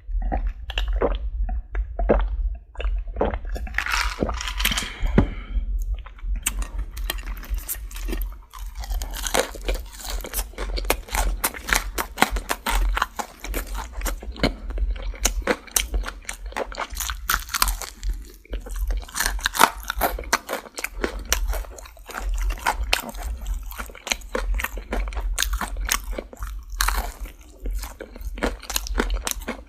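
Close-miked chewing of crispy Popeyes fried chicken coating: a dense, continuous run of crunches and crackles, over a steady low hum.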